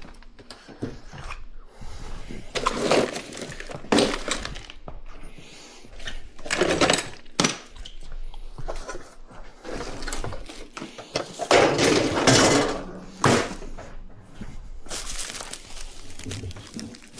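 Irregular clattering and knocks of hard objects being handled and set down, with a few sharper clanks, during dishwasher installation work.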